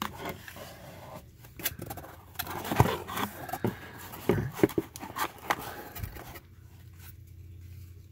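A stack of trading cards being lifted out of a cardboard card box and handled: papery scrapes, slides and light clicks of card stock against card and cardboard. It is busiest over the first six seconds, then goes quieter.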